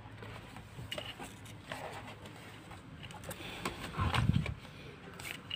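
Handling noises from unpacking on a bed: soft rustles and light clicks as a plastic headset and its packaging are moved about. There is one dull thump about four seconds in.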